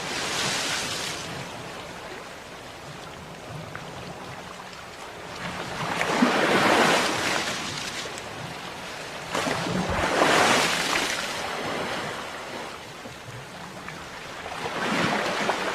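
Ocean waves breaking and washing in on a shore, the surf swelling and ebbing four times, loudest about six and ten seconds in.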